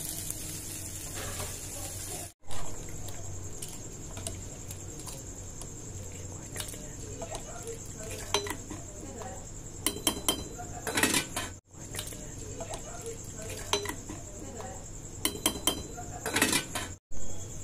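Metal ladle stirring rice in an aluminium pressure cooker, scraping and clinking against the pot at irregular moments.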